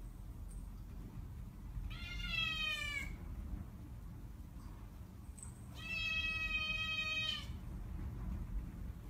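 Kitten meowing twice: first a call of about a second that falls in pitch, then a longer, steadier meow about four seconds later.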